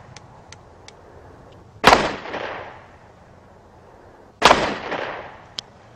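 Two pistol shots from a semi-automatic handgun, about two and a half seconds apart. Each is a sharp crack followed by a short decaying echo.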